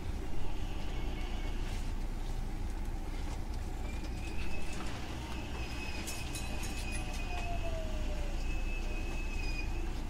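Hankyu 9000 series electric train heard from on board, running slowly with a steady low rumble and a few knocks. A thin high squeal sets in about 4 s in, and a lower tone slides down in pitch a few seconds later as the train brakes into its terminus.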